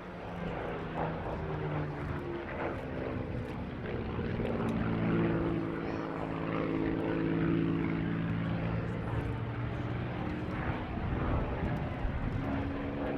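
Piston-engined WW2 fighter flying a display pass, its propeller engine droning steadily and swelling louder about midway, with the pitch shifting as it passes.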